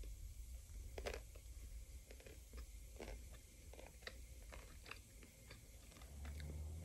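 Biting through the thin chocolate shell of a Häagen-Dazs ruby cacao ice cream bar and chewing it: faint, scattered crackles and crunches of the coating breaking between the teeth.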